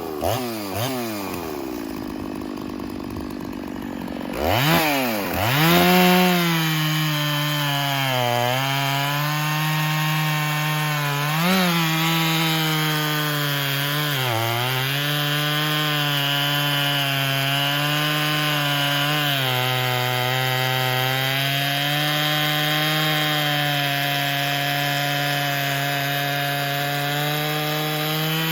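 Stihl MS 460 two-stroke chainsaw with a 20-inch bar cutting through a log at high revs. Near the start the engine drops back, and about four seconds in it revs up again; then it runs steadily in the cut, its pitch dipping briefly a few times as it is leaned into the wood and recovering.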